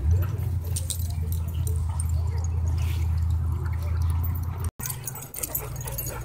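A steady low rumble on the microphone that drops out for an instant about three-quarters of the way through, with faint jingling clicks like dog collar tags as dogs wrestle and run.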